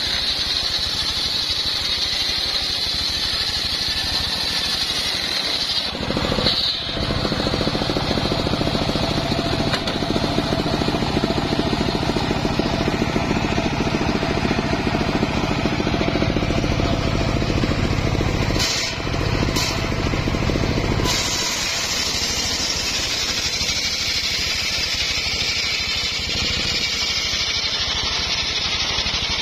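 Homemade circular sawmill running and ripping a large acacia log lengthwise: a steady loud mechanical din, with a high whine from the blade in the cut over the first few seconds. The sound changes about six seconds in and again about twenty seconds in as the log is worked through the saw.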